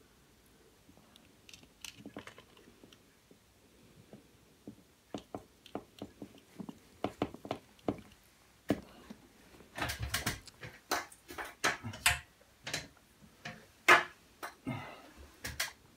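Irregular clicks and taps of a screwdriver working the screws of a small plastic cable connector box, with the box and its wires being handled. The clicks start a few seconds in, grow busier about halfway through, and the sharpest knock comes near the end.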